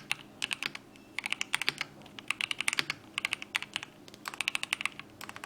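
Mechanical keyboard with TTC Tiger switches being typed on in quick bursts of keystrokes, with brief pauses between the runs.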